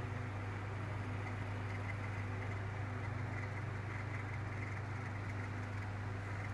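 Toshiba VFH-20L ventilation fan with a shaded-pole motor running steadily: a constant low motor hum under an even rush of moving air.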